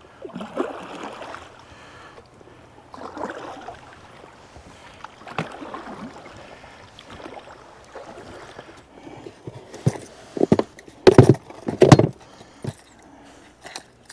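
Small boat being propelled by hand across a river: water swishing and splashing in regular strokes about every two and a half seconds. Several loud knocks come near the end.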